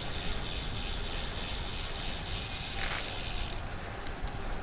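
Road bike rolling on wet asphalt: the tyres hiss through the water, with the rear hub's freewheel ticking as it coasts. The high hiss eases about three and a half seconds in.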